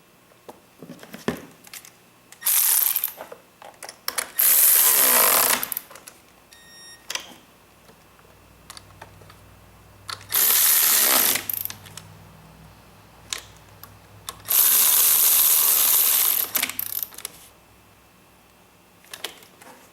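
A power tool running in four bursts of one to two seconds each, with clicks and knocks of handling between them.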